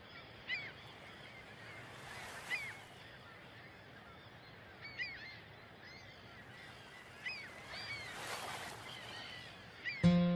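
Birds calling with short, repeated chirps every second or two over a soft background hiss that swells twice. Near the end acoustic guitar music comes in suddenly and is the loudest sound.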